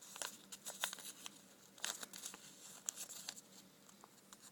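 Packaging of a replacement Zippo wick being opened by hand: irregular crinkling and tearing with a few sharp crackles.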